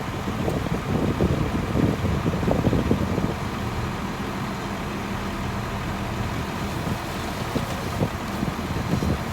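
Heavy diesel earthmoving machinery running steadily, with irregular clanks and scrapes over the first few seconds before the engine settles into an even drone.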